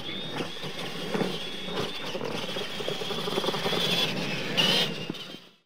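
Radio-controlled monster trucks running on a dirt track: a steady high motor whine over tyre and chassis rattle, with a few knocks, fading out near the end.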